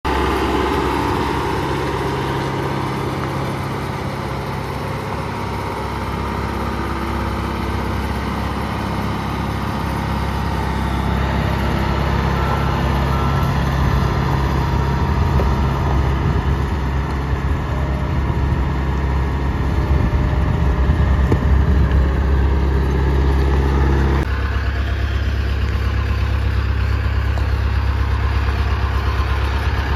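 Tennant 830-II street sweeper's engine running as the machine drives slowly across gravel, with a steady engine note. About three-quarters of the way through the sound changes abruptly to a steadier, lower idle hum.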